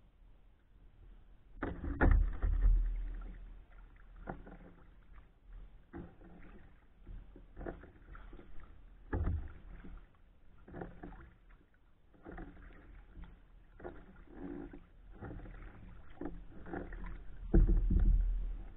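Kayak paddle strokes on calm water: the blades dipping and pulling through the water about every second and a half, with a couple of louder low rumbling knocks, one about two seconds in and one near the end.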